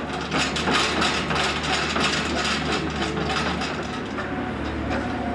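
Construction machinery at work: a compact excavator and a piling rig running with a steady low engine hum, under a rapid clatter of knocks and rattles that thins out near the end.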